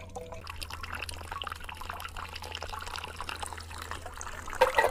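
Water dripping and trickling from the sand tier of a hanging cloth filter into a metal catchment cup: a steady run of small drips. A brief louder noise comes near the end.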